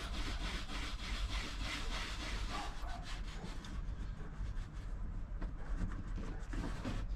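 A cloth or wipe rubbing back and forth on a truck's dashboard top, cleaning the spot for a stick-on mount, about three strokes a second, fading after about four seconds, over a steady low rumble.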